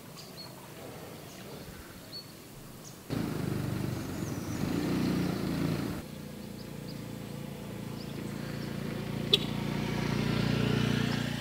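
Motor vehicle engine running, in short clips cut together: quiet at first, then a steady low hum that grows louder toward the end, with one sharp click about nine seconds in.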